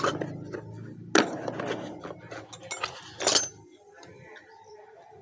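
Hard metal parts clinking and knocking together, typical of the pieces of a hole saw set being handled. There are a few sharp clinks, the loudest about a second in and about three seconds in, over a low hum that stops a little past the middle.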